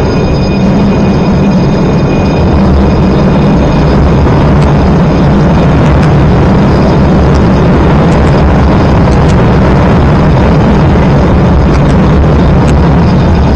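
MBTA Red Line subway train pulling into the station: a loud, steady low rumble of the cars on the track, with faint high-pitched tones near the start and again near the end.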